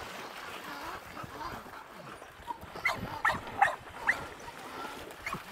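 Dogs barking: a quick run of about five short barks around three to four seconds in, over the light splashing of dogs running through shallow water.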